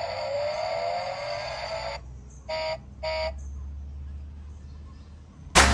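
Electronic sound effects from a battery-powered toy truck: a warbling tone that glides upward for about two seconds, then two short beeps about half a second apart over a low hum. Loud electronic music starts just before the end.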